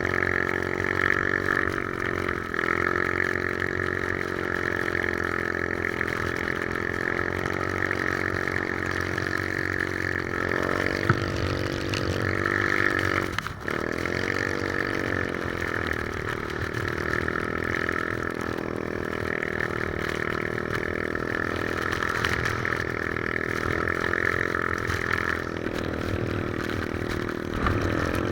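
Three-wheeler's engine running steadily while riding. About halfway through, the engine speed dips sharply and climbs back up.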